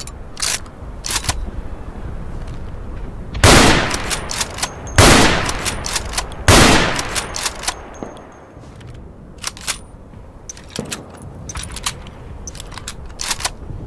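Mauser Gewehr 98 bolt-action rifle, chambered in 7.92×57mm Mauser, firing three loud shots about a second and a half apart, each with an echoing tail. Short sharp clicks and clacks come before and after the shots.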